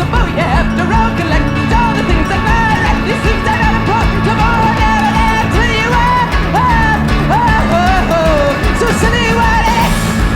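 Background music: a song with a full band and a wavering lead melody line above it.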